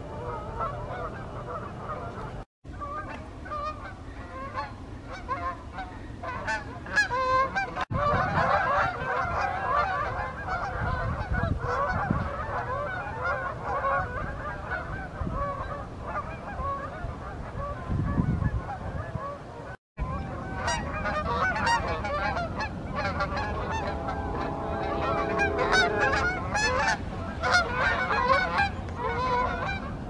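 A flock of Canada geese flying overhead, honking in a dense, overlapping chorus of short calls. The sound drops out briefly three times where clips are joined.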